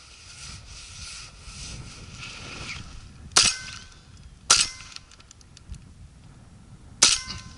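Three shots from an MP-155 semi-automatic shotgun, the first two about a second apart and the third about two and a half seconds later, each followed by a brief ring.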